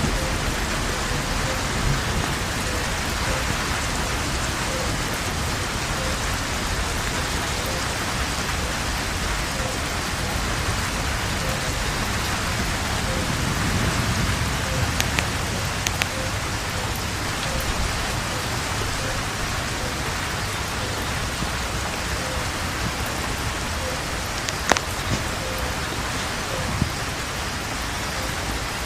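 Steady rain falling, an even dense hiss with a few sharper drop hits here and there.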